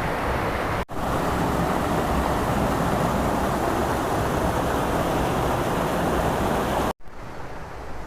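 Steady rushing wind and road noise on the microphone of a moving vehicle on a rough dirt road. It cuts out abruptly about a second in, and again near the end, after which it is quieter.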